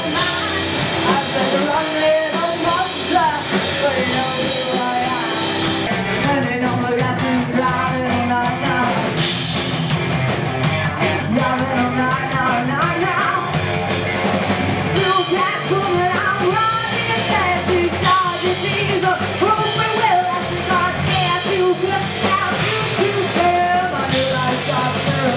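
Live rock band playing a song: lead vocals sung over drum kit, electric guitar and bass guitar.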